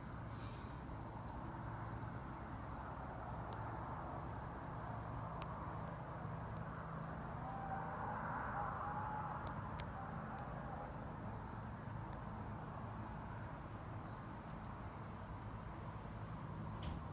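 A cricket chirping steadily in an even, rapid pulse over faint outdoor background noise, with a few faint clicks.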